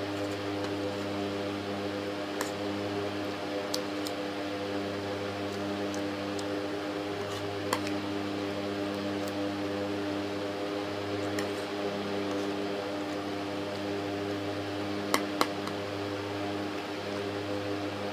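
A steady electrical hum over a hiss, with now and then a sharp click of a spoon against the plate, two close together near the end.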